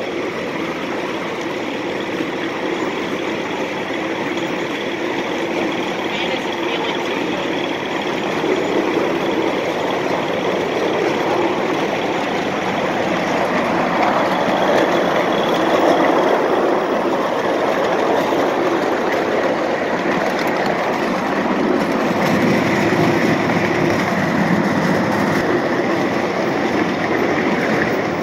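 A 7 1/2 inch gauge ride-on miniature train running along its track, heard from one of its cars: a steady running noise of the train on the rails that grows somewhat louder about a third of the way in.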